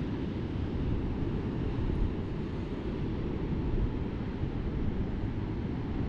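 Wind buffeting the microphone outdoors: a steady, uneven low rumble with a fainter hiss above it.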